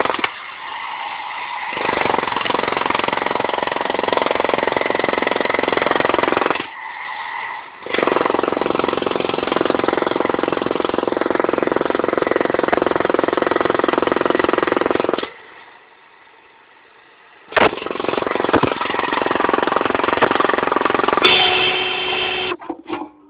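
DeWalt electric demolition hammer breaking up a concrete floor slab, running in long stretches with a short pause about seven seconds in and a quiet gap of about two seconds past the middle. Near the end a handheld electric diamond saw runs with a steady whine as it cuts the concrete.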